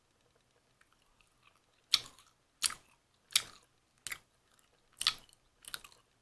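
A person chewing a macaron close to the microphone: soft crunchy chews starting about two seconds in, about six of them, roughly one every 0.7 s.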